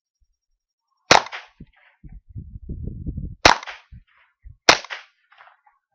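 Savage 64F semi-automatic .22 LR rifle firing three sharp shots, about a second in, then after a pause of more than two seconds, then about a second later, with a low rumble between the first two shots.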